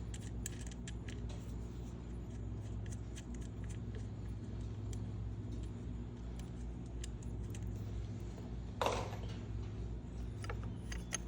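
Light metallic clicks and taps of a 10mm wrench on locked M6 nuts as a Loctited bolt is backed out of the motorcycle's key-barrel mount, with a short scrape about nine seconds in, over a steady low hum.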